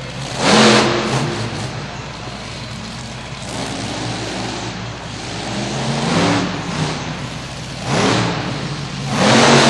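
1,500-horsepower monster truck engine running hard, surging in loud revs about four times: once near the start and three times in the last few seconds.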